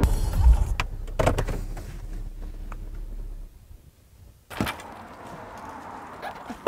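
Low rumble of a car heard from inside the cabin, with a few clicks, dying away after about three and a half seconds. Then a single sharp knock of a car door or hatch being worked, followed by quieter handling.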